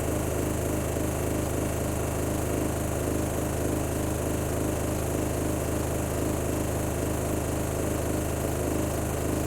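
Miele household appliance running with a steady low hum and a fast, even mechanical pulsing over it: the noise its owner finds abnormal.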